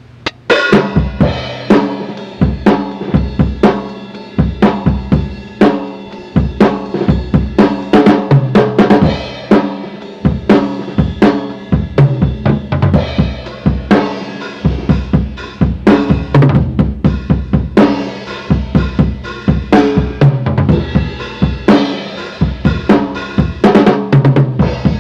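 Tama Imperialstar drum kit played in a continuous groove of bass drum, snare and cymbal hits, with a dull top end as heard from a recording on the Optimus CTR-115 mono cassette recorder.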